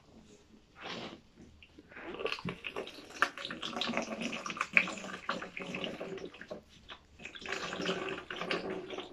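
Water being poured from a plastic measuring jug through a funnel into a plastic bottle, filling it to the 250 ml mark. The pouring starts about two seconds in and runs in two spells with a short break between.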